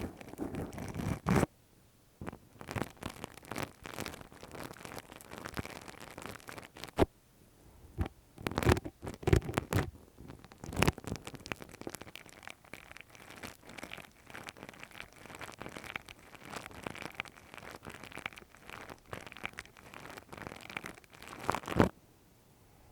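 ASMR ear-picking sounds: irregular scratching and crackling rubs with frequent sharp clicks, stopping suddenly about a second before the end.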